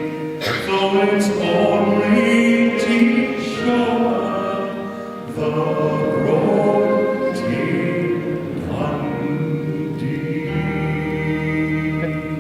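Background music with long held notes, a passage of a folk-song track.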